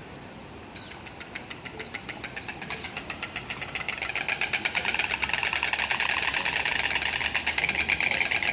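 Bird clattering its beak: a rapid, even rattle of clicks that starts about a second in and grows louder, then holds steady.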